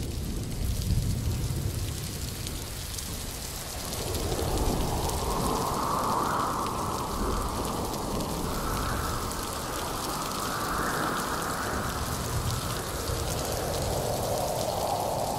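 Recorded rain sound effect for an umbrella dance: steady rain hiss, with a low rumble of thunder dying away at the start. About four seconds in, a wavering, swelling higher sound joins the rain and rises and falls in slow waves.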